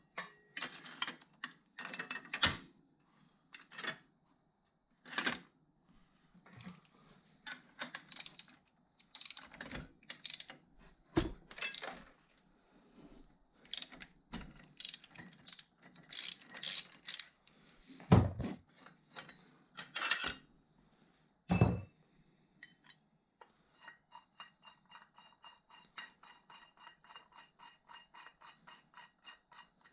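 Irregular metallic clicks and knocks from a Polaris 500 HO ATV's drive clutch, a sign of its worn-out spider rubber buttons. In the last six seconds or so they give way to a regular creaking tick about three times a second.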